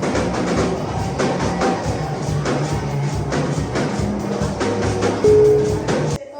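Music with drums and a steady beat, with a loud held note about five seconds in; it cuts off suddenly near the end.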